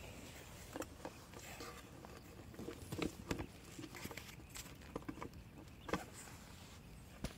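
Irregular light taps and clicks, about a dozen scattered through a few seconds, the sharpest a few seconds in and near the end, over a faint steady hiss.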